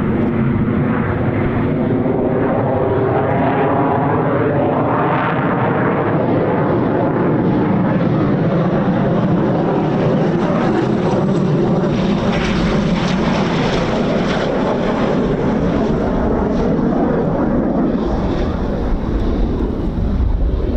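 Eurofighter Typhoon's twin EJ200 turbofan jet engines heard from the ground as the jet flies a low circuit: a loud, steady rushing roar whose tone slowly sweeps up and down as the aircraft moves across the sky, with a deeper rumble building near the end.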